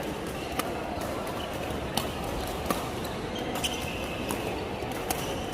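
Badminton rackets striking a shuttlecock during a rally: several sharp hits at uneven intervals of roughly one to one and a half seconds, over the steady background hum of a sports hall.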